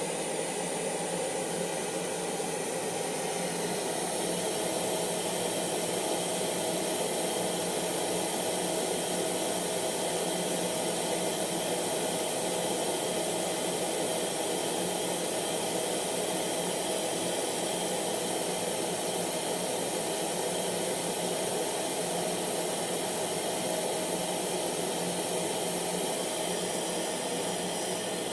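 Hair dryer running steadily: a constant rush of blown air with a thin, steady motor whine.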